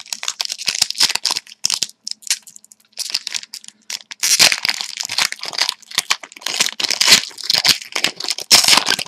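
Trading-card pack wrappers being torn open and crinkled by hand, an irregular run of tearing and crinkling.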